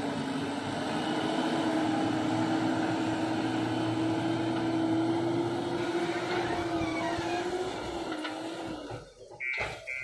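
JCB backhoe loader's diesel engine running under load as the machine drives with a full front bucket, its note holding steady and rising slightly before easing off. The sound dips briefly about nine seconds in.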